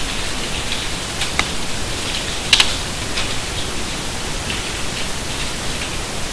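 Steady hiss of background noise with a few faint computer keyboard clicks, the loudest about two and a half seconds in.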